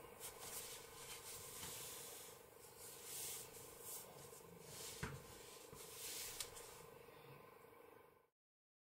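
Faint rustling and rubbing of t-shirt yarn handled with a crochet hook, over a faint steady hum, with a soft click about five seconds in. The sound cuts out to dead silence near the end.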